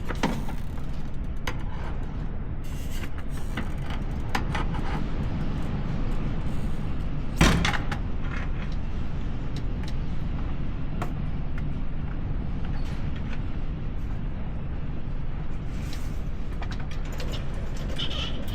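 Scattered clanks and knocks over a steady low rumble, the loudest a sharp knock about seven and a half seconds in.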